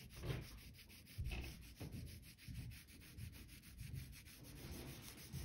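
Red wax crayon scribbling back and forth on paper, colouring in a stripe: a faint, scratchy rubbing in repeated strokes, roughly two a second.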